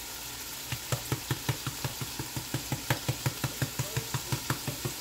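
A spice container of ground cumin being shaken and tapped over the skillet, making rapid regular knocks about five a second that start under a second in, with diced chicken sizzling in the hot oil underneath.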